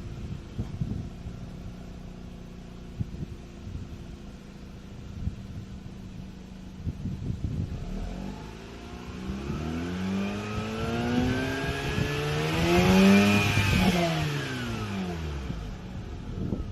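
Mazda RX-8's two-rotor rotary engine idling with irregular ticks, then revved in one slow rise from about eight seconds in, peaking around thirteen seconds and falling back to idle near the end. The engine is running with Seafoam through it.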